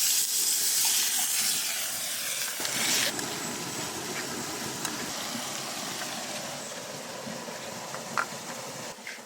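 A loud, even hiss that starts suddenly, eases after about three seconds and carries on more quietly, with one short click near the end.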